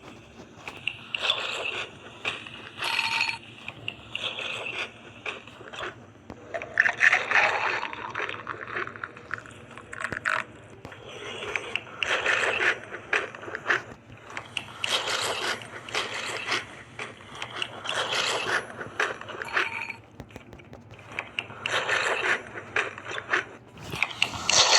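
Crunchy food being eaten and handled close to the microphone: repeated bursts of crackling and crunching, each about a second long.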